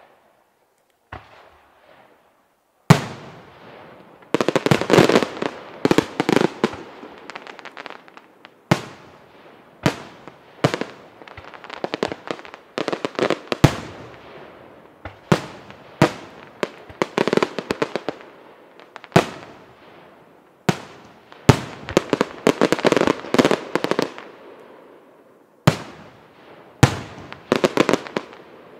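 Aerial firework shells bursting overhead: a sharp bang every second or two, the loudest about three seconds in, with stretches of dense crackling between the bangs.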